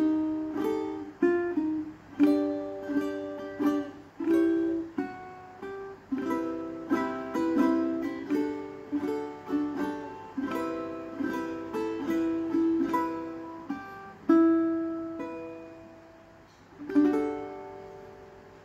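aNueNue LOUT Lion Orange tenor ukulele played solo, picking a melody note by note over chords. A long note rings about three quarters of the way through, and a final chord near the end rings out and fades.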